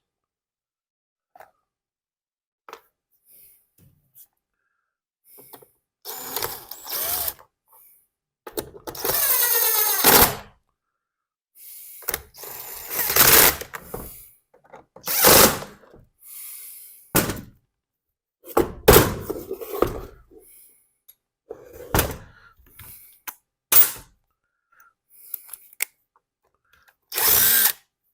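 Cordless drill/driver running in a dozen or so short bursts, driving screws into the plastic housing of a leaf blower, with knocks and clicks of handling between bursts.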